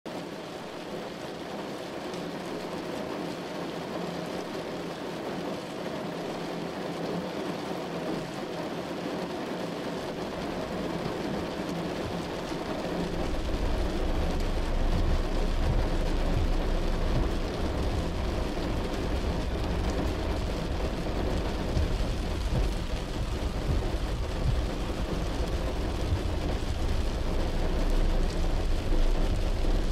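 Heavy rain drumming on a car's roof and windshield, heard from inside the car. About 13 seconds in, a steady low rumble joins and the sound grows louder.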